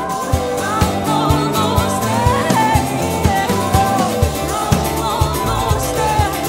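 Live band music: a voice singing a wavering melody over a steady beat, about two beats a second.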